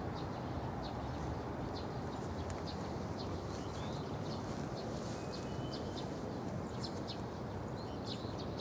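Small birds chirping in short, high notes that come again and again, over a steady low rumble of background noise.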